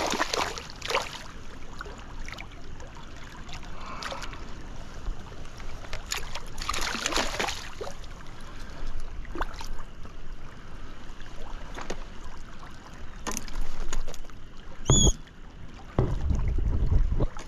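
Hooked brown trout splashing at the surface of a stream in a few bursts, with the loudest ones at the start and about seven seconds in, over the running water. Near the end there is a heavy close rumble of handling against the microphone.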